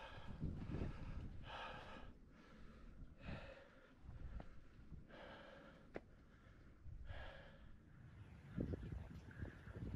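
A hiker breathing hard from the uphill climb, one loud breath about every two seconds, close to the camera's microphone, over a low rumble.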